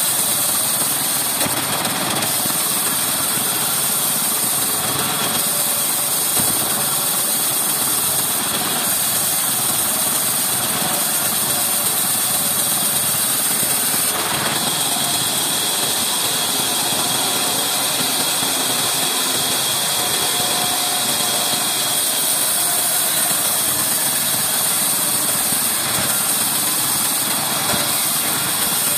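Large vertical band saw running steadily while an old reclaimed wooden beam is fed through the blade: a continuous, loud machine noise with a steady high-pitched hiss.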